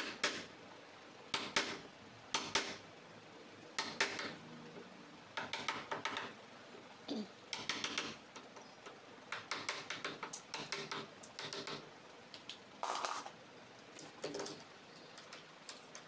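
Hand chisel paring out a lock mortise in a wooden door edge: short scraping, cracking strokes as the blade cuts the wood, coming in quick runs of several strokes with pauses between. The mortise is being enlarged to take a bigger mortise lock body.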